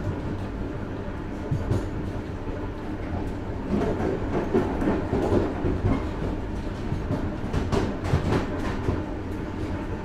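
Train wheels rumbling and clattering over the rails, heard from inside a railway carriage vestibule. The clatter grows louder and busier from about four seconds in.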